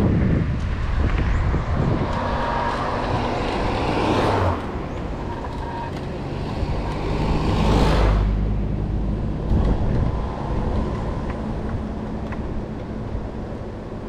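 Road traffic noise while riding an electric scooter along the road, over a steady low rumble. Two cars swell past, about 4 and 8 seconds in, the second one the loudest.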